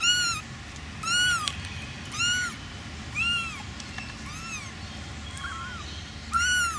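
Frightened feral kittens meowing repeatedly, high-pitched calls that rise and fall, about one a second.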